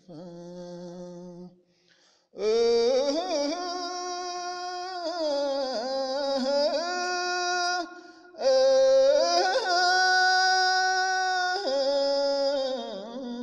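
A solo voice singing long, wavering held notes with bends in pitch, in two long phrases with a brief break near the middle.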